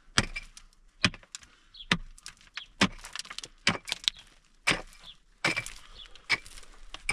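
A hand pickaxe striking and breaking up stony earth, about one blow a second, each hit a sharp crunching impact with a short scatter of loosened dirt and pebbles.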